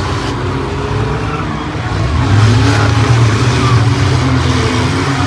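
Demolition derby cars' engines running and revving, a loud, steady low drone of several engines at once.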